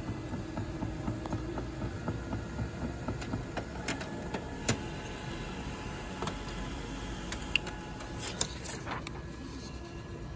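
HP colour laser multifunction printer running as it prints a supplies status report page: a steady mechanical whir with a fast flutter, and several sharp clicks in the second half as the page feeds through and out.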